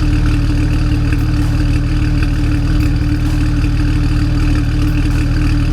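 BMW N54 twin-turbo straight-six of a 2009 135i, fitted with decat downpipes, idling steadily with a slight misfire in its idle.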